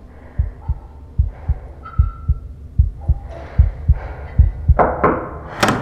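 Heartbeat sound effect in a tense score: steady low thuds in pairs under faint soft tones, building into a rising whoosh near the end.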